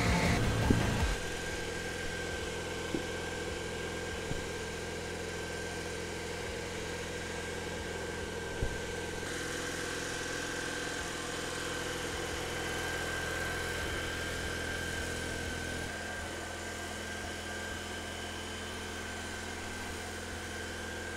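A steady engine hum at idle, with a few light knocks.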